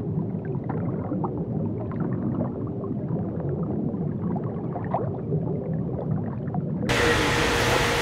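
Underwater sound picked up by a camera just below the surface: a muffled low rumble of moving water with scattered small clicks and bubble pops. About seven seconds in it cuts suddenly to open-air sound, a steady hiss with a faint hum.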